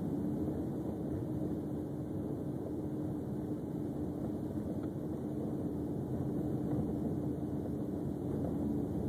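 Car driving at steady speed on a paved road, heard from inside the cabin: steady engine and tyre noise with a low, even hum.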